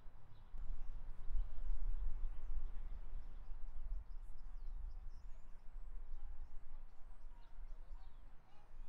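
Outdoor ambience: a low, uneven rumble of wind on the microphone, with faint bird chirps high above it.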